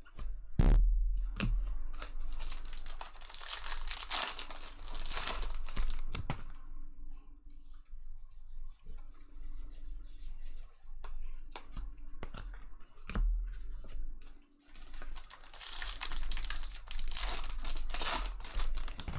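Trading-card pack wrappers being torn open and crinkled by hand in two long stretches. A few sharp knocks come from handling on the table.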